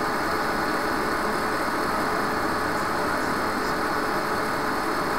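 Steady background hum and hiss picked up by a webcam microphone, with a faint steady tone running through it.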